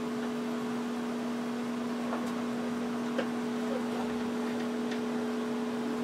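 Microwave oven running with a steady low hum and the whir of its fan, while a telephone burns inside; a few faint crackles and pops come from the fire a couple of seconds in.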